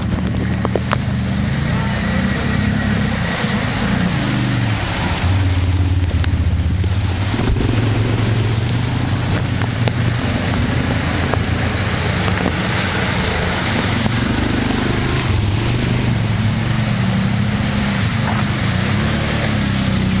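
Quad bike engines running at low revs, their pitch wandering up and down as the machines crawl along, over a steady rushing hiss.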